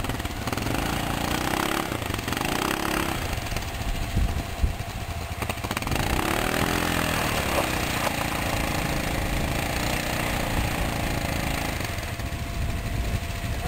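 ATV engines running under load in deep snow as a tracked Polaris tries to pull out a stuck Can-Am Outlander. The revs rise and fall about a second in and again around six seconds, over a steady low engine note.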